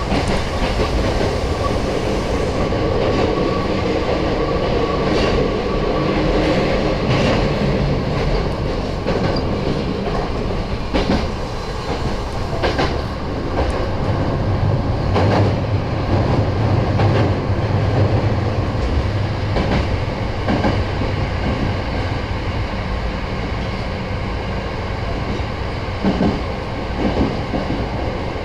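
Nose Electric Railway 7200-series electric train running along the line, heard from on board: a steady rolling rumble and hum, broken every few seconds by sharp clicks of the wheels over rail joints.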